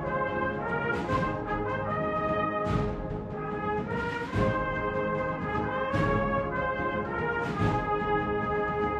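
Brass band playing a slow processional march: held brass chords over a heavy drum beat about every one and a half seconds.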